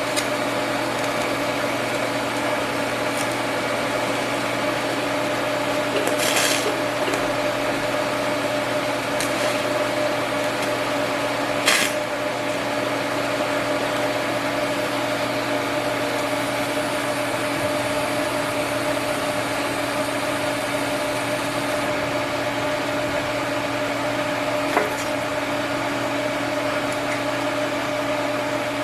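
Steady electrical buzzing hum of an arc welder running, with two short clicks about six and twelve seconds in.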